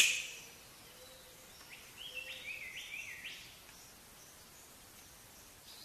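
Riflebird calling: a quick run of five or six short, high notes, each stepping upward in pitch, over about a second and a half, against a faint steady hiss.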